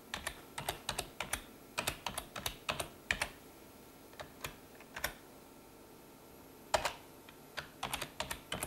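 Typing on a computer keyboard: quick runs of keystrokes as words are typed, with a pause of about a second and a half past the middle.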